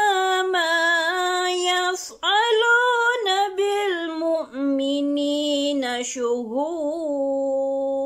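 A woman's voice chanting Quranic recitation in melodic tajweed style, drawing each phrase out into long held notes with small waves in pitch and brief pauses for breath.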